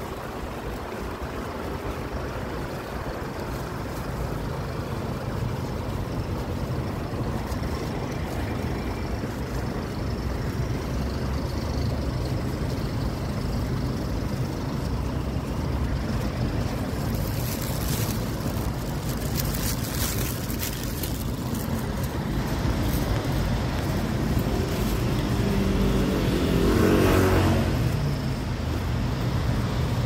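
Wind buffeting a phone's microphone, a steady low rumble that grows louder, mixed with street traffic noise. About 27 seconds in, a louder hum swells and fades.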